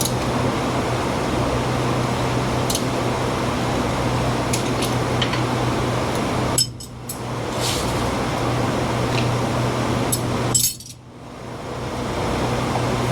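Steady machine hum and rush, which drops away sharply twice and builds back up, with a few light metallic clinks of hand tools on metal parts.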